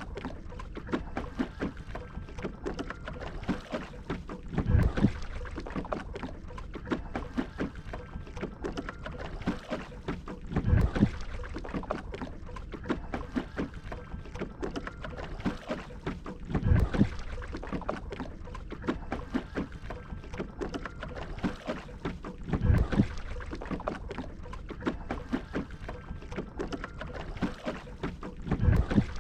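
Shikara being paddled across a lake: a paddle stroke pulls through the water about every six seconds, with water lapping and trickling against the wooden hull in between.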